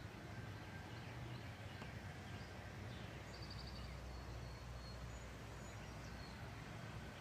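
Faint backyard birds chirping here and there, with one short trill about three seconds in, over a steady low rumble.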